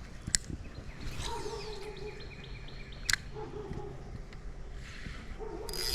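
Outdoor background noise with birds chirping, broken by two sharp clicks about three seconds apart.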